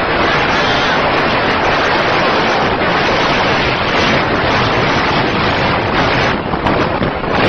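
Loud, steady wind roar buffeting the microphone while moving at speed alongside a small motorbike, with vehicle noise mixed in.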